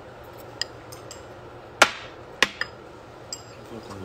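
A metal utensil knocking and clinking against a ceramic bowl while eating, in about six separate sharp strikes, the loudest a little under two seconds in.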